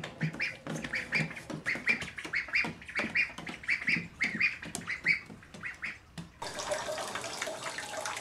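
Two ducklings peeping over and over as they walk, about three quick calls a second. About six seconds in, this cuts suddenly to a steady rush of water running into a bathtub.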